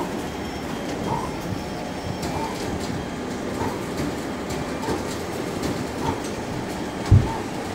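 Canon imagePROGRAF iPF750 large-format inkjet printer printing, its print-head carriage sweeping back and forth over a steady mechanical whir, with a short chirp about every 1.2 seconds. A single low thump about seven seconds in.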